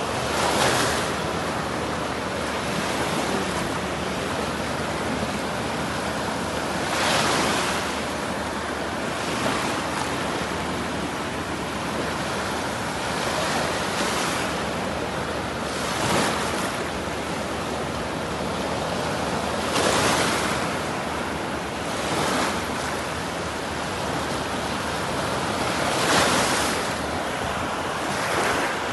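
Sea waves breaking and washing up a sandy beach: a steady wash of surf that swells louder each time a wave breaks, every few seconds.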